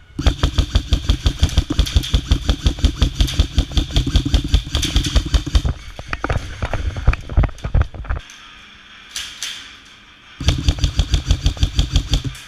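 Airsoft electric gun firing on full auto close by: a long, rapid, even burst of about five and a half seconds, a few scattered shots, a pause, then another burst of about two seconds near the end.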